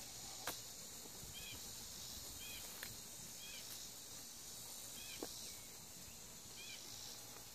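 Carbon-steel blade of a Schrade folding shovel worked into gravelly soil, with a few sharp clicks and scrapes, the loudest about half a second in. Behind it, a short chirp repeats about once a second over a steady high hiss.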